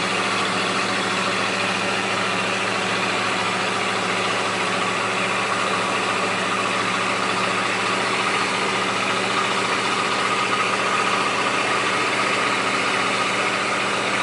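An engine running steadily at one constant speed.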